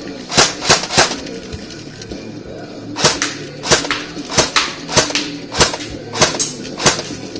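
Background music with a steady low accompaniment and sharp clap-like hits: three close together near the start, then one roughly every two-thirds of a second.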